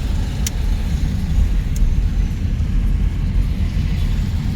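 Steady low rumble of a car's engine and road noise heard from inside the moving car's cabin, with a couple of faint clicks.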